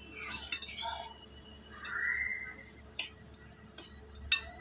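Steel spoon stirring and scraping dry-roasting coarse semolina around a metal pan, with a short squeak about two seconds in and a few sharp clicks of the spoon against the pan near the end.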